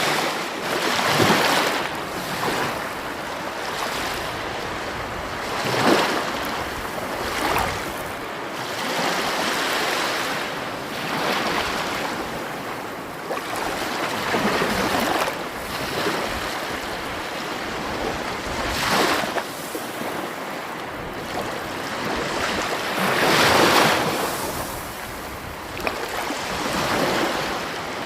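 Sea waves breaking and washing ashore in a steady hiss that swells and falls every few seconds. The louder breaks come about six seconds in and again near the end.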